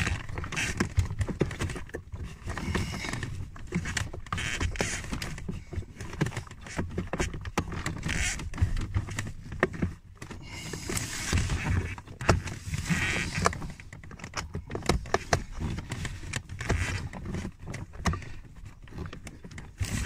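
Hands working the plastic final stage (blower) resistor and its wiring plug under the dashboard: irregular clicks, knocks and rustling, with the handheld microphone being bumped.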